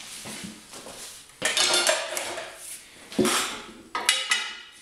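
Steel tools on a manual tire changer: the long changer bar and a tire iron clanking and scraping against the changer and the wheel during a bead dismount. There are sharp metal clanks about a second and a half in and about three seconds in, then a cluster just after four seconds that rings briefly.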